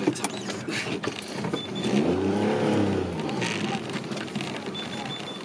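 A small three-cylinder car engine revving as the car pulls away, its note rising to a peak about halfway through and then dropping, with a sharp knock right at the start. Faint rapid high beeps from the car's parking sensors come briefly in the middle and again near the end.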